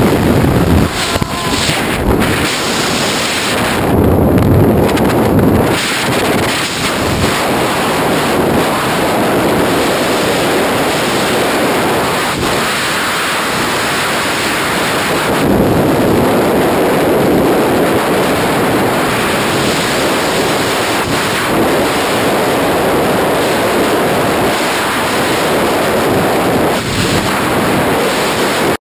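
Loud, steady rush of wind buffeting the microphone during a skydive freefall.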